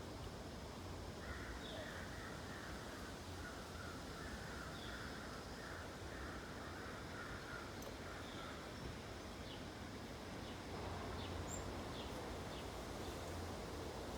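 Backyard birds calling: a run of harsh, rapidly repeated calls lasting several seconds from about a second in, with short high chirps scattered through, over a steady low background rumble that grows louder near the end.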